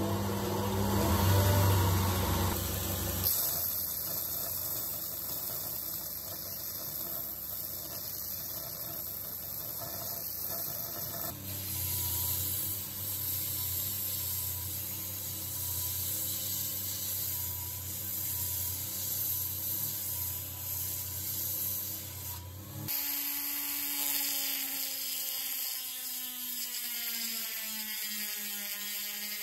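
Belt grinder running with a steady low hum while a rusty steel hammer head is ground against its abrasive belt to strip the rust. Near the end a rotary tool with a sanding drum takes over on the hammer head, a higher whine that drops slightly in pitch and settles.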